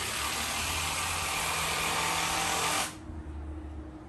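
A power tool runs in one steady burst of about three seconds, then stops abruptly.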